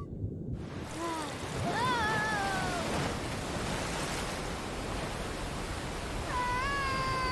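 A steady rushing noise, like surf, with a few short pitched cries that fall in pitch between about one and three seconds in; a longer, rising-then-falling cry starts near the end.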